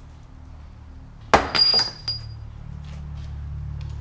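A metallic clatter about a second and a half in: a small piece of metal hardware or a tool strikes metal and clinks several times, leaving a brief high ringing note. A steady low hum runs underneath.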